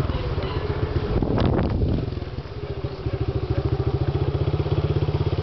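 Small motorcycle engine running as the bike rides along, with a brief rattle about one and a half seconds in; the engine eases off for a moment near the middle, then picks up again with a steady fast putter.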